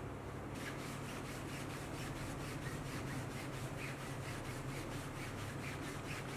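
Brisk rhythmic hand rubbing, about five quick strokes a second, starting about half a second in, over a steady low hum.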